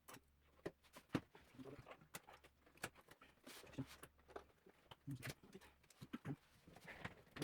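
Faint, scattered clicks and light taps of hands working around an opened synthesizer's cables and plastic connectors.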